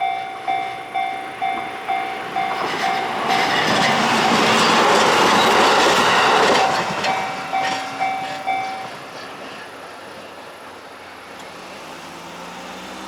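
Japanese level-crossing warning bell ringing about twice a second while a train passes through, the train loudest in the middle with its wheels clattering over the rails. The bell stops about nine seconds in.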